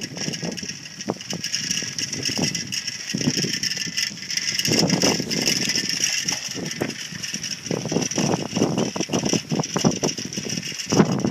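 A bicycle being ridden along a sandy path: the tyres on the path and the bike's parts rattling in uneven bursts, over a steady high hiss.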